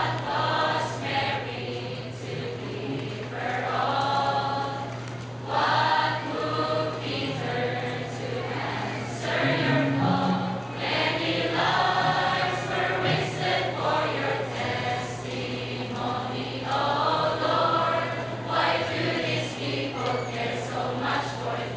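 Mixed choir of men's and women's voices singing, in phrases of a few seconds with short breaks between them, over a steady low hum.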